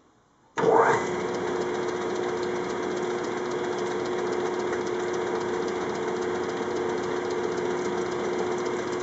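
Small metal lathe switched on about half a second in, then running steadily at a relatively slow speed, its electric motor and spinning chuck giving a steady hum over an even whir.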